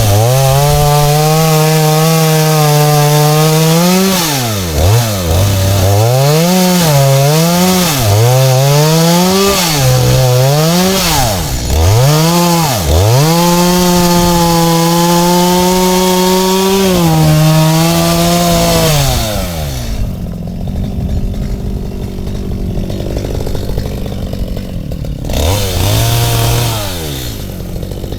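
Two-stroke Stihl chainsaw cutting palm wood: the engine runs at high revs under load, its pitch dipping and picking up again several times. About twenty seconds in it drops back to idle, then revs briefly once more near the end.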